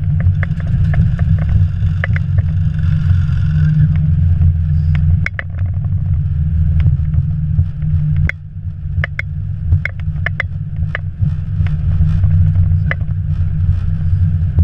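Airbus A321 cockpit during the landing rollout: a loud, steady low rumble of the airliner rolling down the runway, with irregular knocks and rattles on top. The rumble drops in level twice, about five and eight seconds in, as the jet slows.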